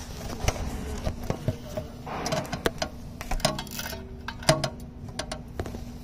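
Irregular metal clicks and clinks from a wrench working on the engine mount bolt as it is tightened.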